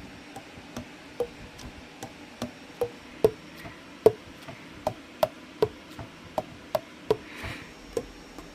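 Conn 21M alto saxophone keys being pressed and released in a steady rhythm, about two to three a second, each pad closing on its tone hole with a short pitched pop that shifts from key to key.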